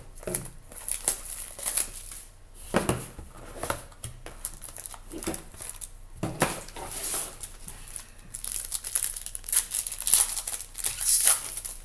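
Plastic shrink wrap crinkling and tearing as it is stripped off a trading-card box, then a foil card-pack wrapper being torn open and crinkled. The crackling is loudest and densest near the end.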